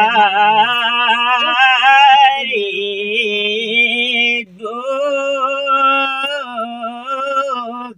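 Elderly man singing a Nepali village song unaccompanied, in long drawn-out notes with a wavering vibrato; he breaks briefly for breath about four and a half seconds in.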